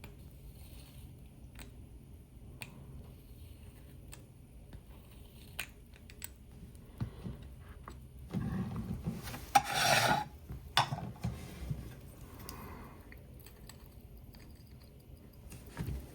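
Small-scale handling of a watch and hand tools at a bench: scattered light clicks, and a brief rubbing scrape about eight to eleven seconds in, the loudest sound.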